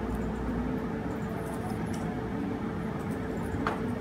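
Steady low room hum with a faint steady tone, and a light click near the end as the stainless steel fidget spinner is turned in the fingers.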